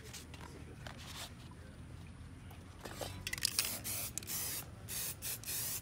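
Aerosol spray paint can spraying onto a canvas in a series of short hissing bursts, starting about three seconds in.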